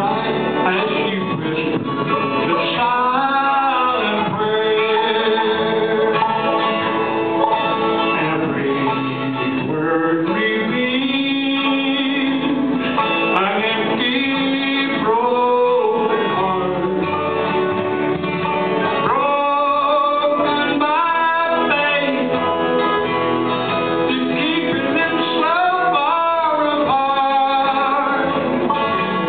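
Bluegrass band playing live: acoustic guitar and other plucked strings carry a slow song, with singing over them.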